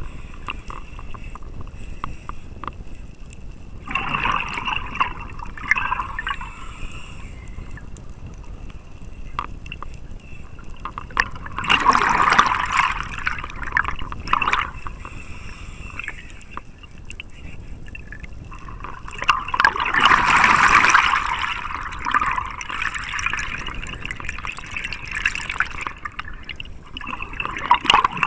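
Underwater scuba sound as picked up by a camera: a diver's exhaled regulator bubbles rushing out in bursts of two to three seconds, four times, about every seven to eight seconds, over a steady low wash of moving water.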